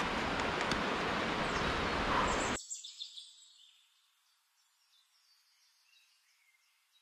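A steady rush of outdoor noise that cuts off suddenly about two and a half seconds in, followed by near silence with a few faint bird chirps.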